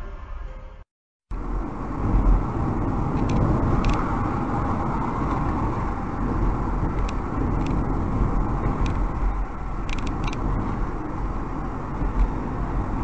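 Steady road and engine noise of a car driving along a highway, heard from inside the car through a dashcam microphone, with a few faint clicks. The sound cuts out briefly about a second in.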